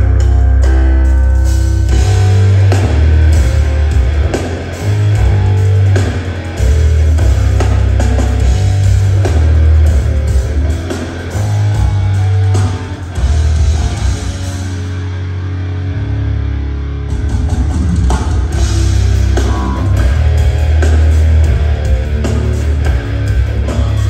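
Live rock band playing a heavy riff on drum kit and electric guitar, with strong low bass notes, during a sound check. About two-thirds of the way through the cymbals and drums drop out for a moment, then come back in.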